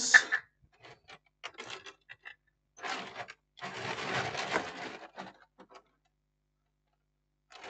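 Small clicks and rattling of parts being rummaged through while looking for a spare fuse, with a longer stretch of rustling in the middle.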